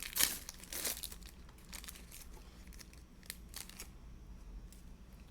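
Foil trading-card pack wrapper crinkling and tearing, densest in the first second, then two brief rustles a couple of seconds later and faint handling.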